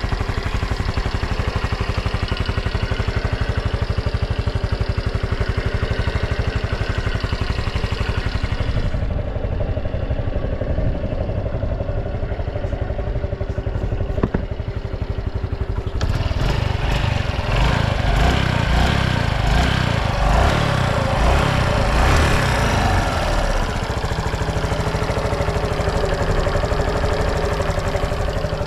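Honda Super Cub 110 (JA07) fuel-injected single-cylinder engine running steadily at idle, then revved for several seconds a little past halfway before settling back to idle. It revs up cleanly with no abnormal noise.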